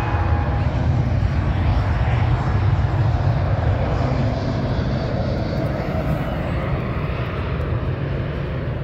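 Boeing 787-9 Dreamliner's Rolls-Royce Trent 1000 engines at takeoff power as the airliner rolls, lifts off and climbs away: a loud, deep, steady rumble that eases slightly near the end.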